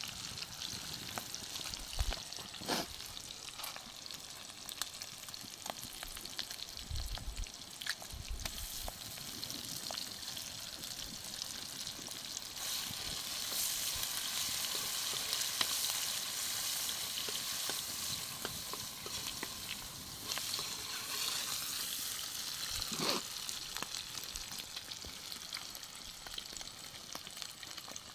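Sliced onions and green chillies sizzling in hot oil in an iron kadai over a wood fire, with a metal spoon stirring and scraping the pan now and then. The sizzling grows louder through the middle, then eases.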